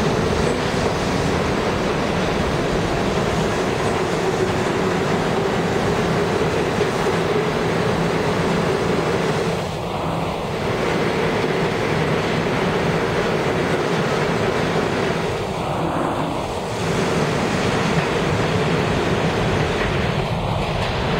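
New York City Subway train running along an underground station platform and pulling away: a steady rumble of wheels on rail with a constant mid-pitched hum, dipping slightly about ten seconds in and again about sixteen seconds in.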